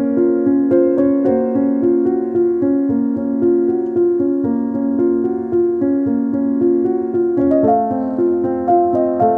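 Background piano music: a continuous stream of notes that moves to a new chord about three-quarters of the way through.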